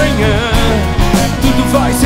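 Live rock and roll band playing, with drums, bass, guitar and keyboards, and a man's voice singing a wavering melodic line over them.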